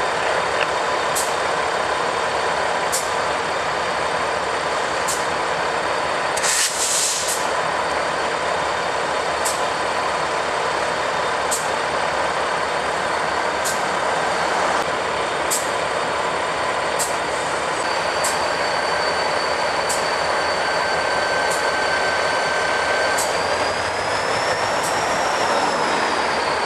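EMD SD40-2 diesel-electric locomotives running at close range. There is a short burst of air hiss about seven seconds in. From about eighteen seconds on a thin high squeal joins them, bending up and then down in pitch near the end.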